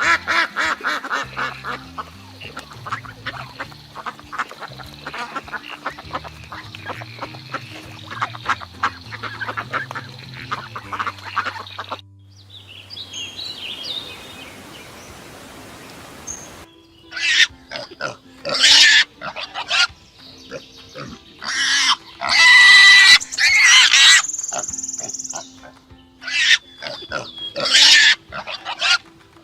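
A flock of ducks quacking rapidly over background music. After a short break, pigs squeal and grunt loudly in long, harsh calls.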